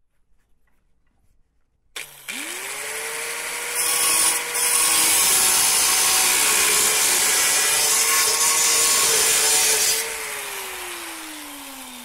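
A power cut-off wheel spins up about two seconds in, then cuts through thin steel floor panel with a loud, even hiss for about six seconds. Near the end it is switched off and winds down with a steadily falling pitch.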